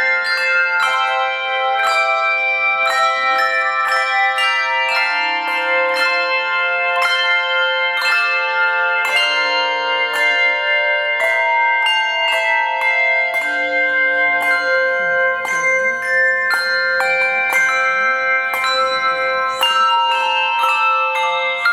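Handbell choir playing a piece: bells struck one after another, each note ringing on and overlapping the next into chords, about two new strikes a second.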